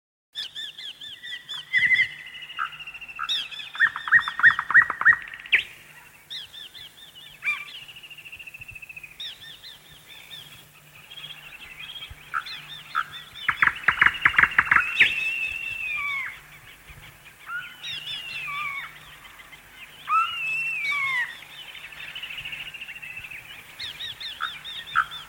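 Several birds chirping together: overlapping short chirps, quick trills and falling whistled notes, with louder bursts of rapid chirping about four and fourteen seconds in.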